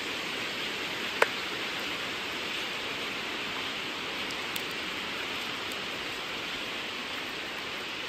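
Steady rushing of a river in flood, running high enough to spill over its banks. A single quick rising chirp sounds about a second in.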